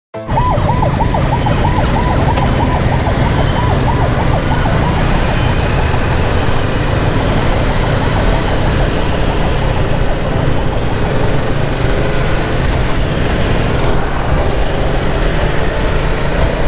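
An emergency-vehicle siren wailing rapidly up and down, several sweeps a second, fading away after about five seconds. Under it runs a loud, steady low rumble of road and engine noise.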